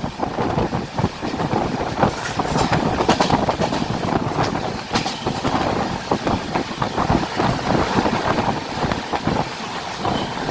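Moving train running on the rails: a steady rumble with dense, irregular wheel knocks and rattling.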